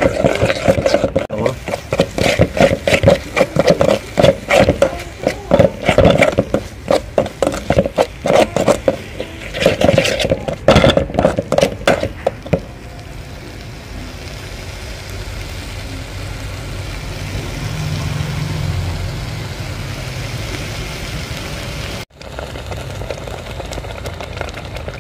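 Metal spoon scraping and stirring a thick paste in a metal pot, in quick, irregular strokes for about the first half. After that comes a steady low rumbling noise.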